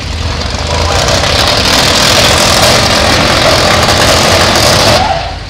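Demolition derby car engines at full throttle: a loud, rough roar that builds about a second in, holds for about four seconds and cuts off abruptly, over a steady low engine rumble.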